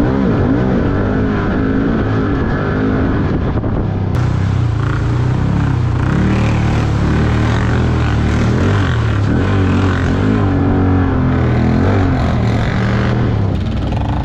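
Quad (ATV) engine running close by, its pitch repeatedly rising and falling as the throttle is worked.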